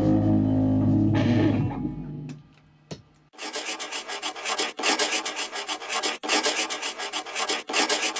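A rock band's final chord rings out and fades over the first two seconds. After a short pause, a pencil scratches across paper in runs of quick scribbling strokes, with brief breaks about every second and a half.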